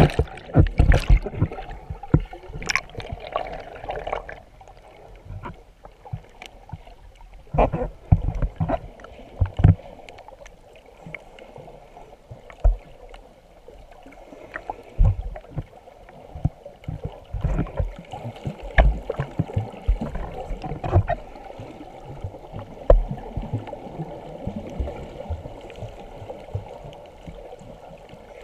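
Water heard through a submerged camera: muffled sloshing and bubbling with irregular low thumps and knocks. A few splashes come at the very start as it goes under the surface.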